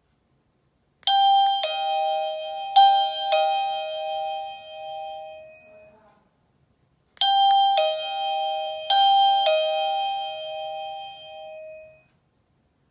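Satisure wireless doorbell receiver playing an electronic ding-dong chime: a high and a low bell-like tone twice in a row (ding-dong, ding-dong), each note ringing out and fading. The four-note phrase plays twice with a pause between.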